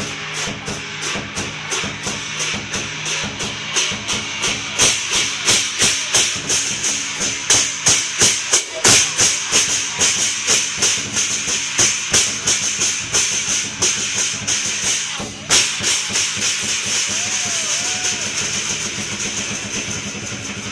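Lion dance percussion: a drum beaten in a steady driving rhythm with clashing cymbals on the beats, their ringing wash filling the high end. One especially loud crash comes about two-thirds of the way through.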